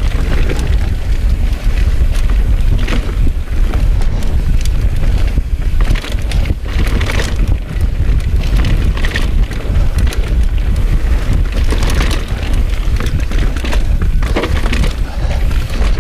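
Mountain bike descending a rocky dirt trail at speed: wind buffeting the microphone under tyres rolling over dirt and stones, with frequent clattering knocks and rattles as the bike bounces over rocks and roots.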